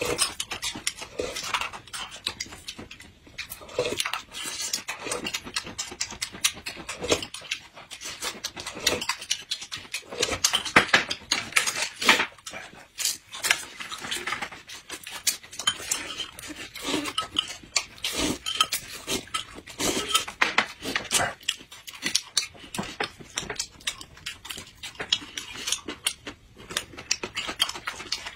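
Close-miked eating sounds: two people chewing flatbread and smacking their lips in a quick, irregular stream, with chopsticks and spoons clicking against dishes.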